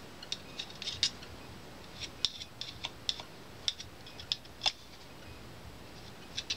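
Small, irregular sharp clicks and light scrapes of a small hand tool against the metal levers, brackets and springs of a Technics SL-1900 tonearm's cueing (arm-lift) mechanism as synthetic grease is worked into it.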